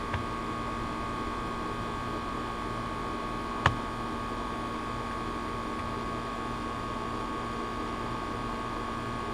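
Steady hum with a background hiss, broken by a single sharp click about three and a half seconds in as the plastic hose timer is handled.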